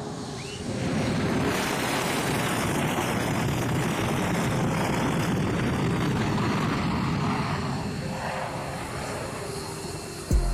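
A fixed-wing aircraft's engine roar swells in under a second, holds steady, then fades toward the end. A heavy low thump hits right at the end.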